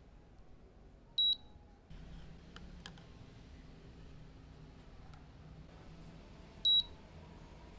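Two short, high electronic beeps from a Latina DST-3000 digital coffee scale, one about a second in and one near the end, of the kind its buttons or timer give. A faint low hum and a few light clicks lie between them.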